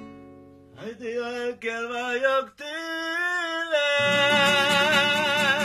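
A man singing a slow hallgató song, holding long notes with a wide, wavering vibrato; a fuller accompaniment comes in under the voice about four seconds in.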